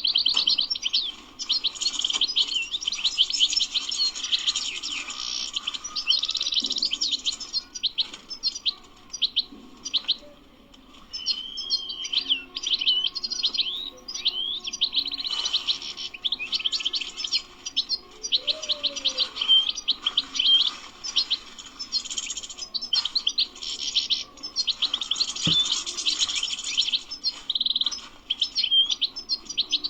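European goldfinch singing: long runs of fast, liquid twittering and trills with short pauses between phrases.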